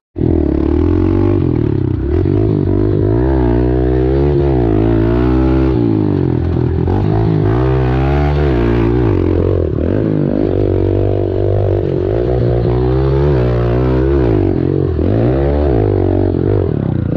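Kawasaki KLX110 pit bike's small single-cylinder four-stroke engine heard up close from the rider, running hard and revving up and dropping back in pitch several times as it is ridden through the gears and corners.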